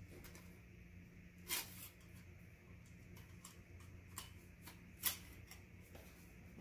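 A folded tripod light stand being handled, making a few light clicks and a brief rustle; a sharp click about five seconds in is the loudest. A low steady hum runs underneath.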